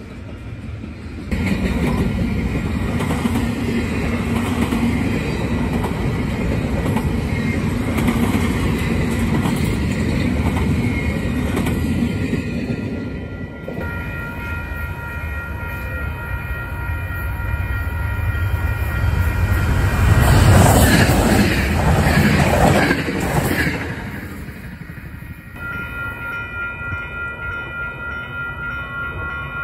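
A double-stack intermodal freight train rolling past with a steady low rumble. After that, steady ringing from the grade-crossing warning bells, with a loud swell about two-thirds of the way through.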